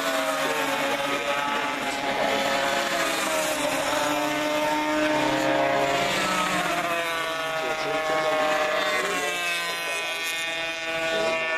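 Several classic racing motorcycles go through a corner together, their engines overlapping. Their pitch falls and then rises again as they pass, with one engine climbing in pitch near the end.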